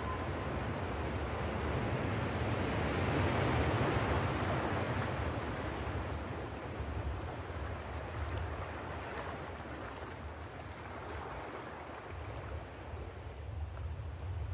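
Sea surf and wind: a steady rushing noise with a low rumble beneath. It swells to a peak about four seconds in, then slowly eases.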